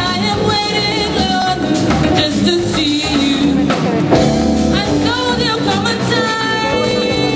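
Live band playing: a singer over drum kit and congas, with a saxophone in the group.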